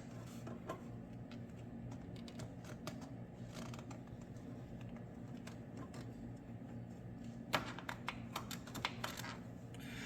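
Light clicks and scratches from a marker being worked around a car's motor mount, with a quick run of sharper clicks about three quarters of the way through, over a steady low hum.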